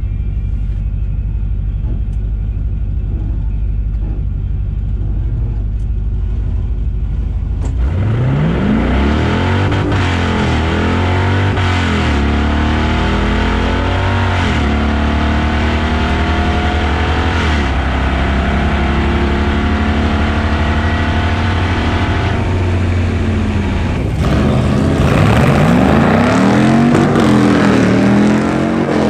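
Swapped 5.3 L Gen V L83 V8 in a Mazda RX2, heard in the cabin: it idles with a steady low rumble, then about eight seconds in it launches at full throttle. The pitch climbs and drops back at each of several upshifts until the throttle closes at the end of the quarter-mile run. Near the end there is a louder stretch of a V8 drag car launching and accelerating, heard from trackside.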